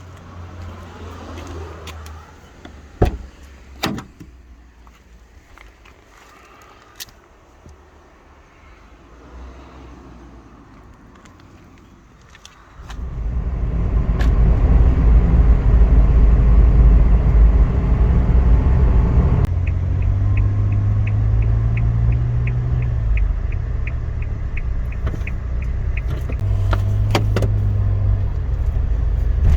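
Car sounds: two sharp clunks, then about thirteen seconds in a loud, low car rumble starts suddenly and keeps going. Partway through, a steady run of quick, evenly spaced ticks sounds for several seconds.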